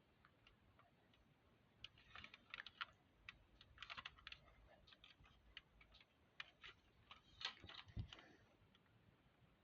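Faint, irregular light clicks and taps in quick clusters, like small hard plastic parts being handled. They start about two seconds in and die away near the end.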